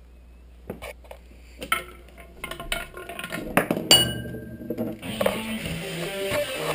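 Small parts of a homemade chain-reaction machine clicking and knocking, then a bright ringing clink about four seconds in. Guitar music starts about a second later.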